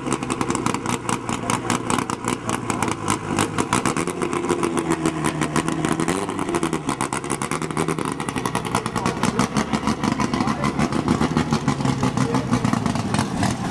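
Vintage race car engine running close by, its exhaust beating in a rapid, even pulse, the pitch shifting slightly up and down.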